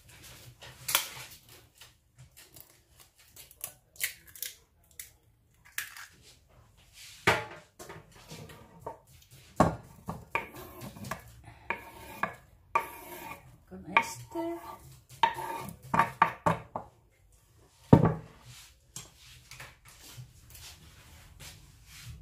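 Kitchen utensil clatter: a knife and a wooden cutting board knocking and scraping against a glass mixing bowl as chopped spring onions are pushed in, with irregular sharp knocks, the loudest about ten and eighteen seconds in.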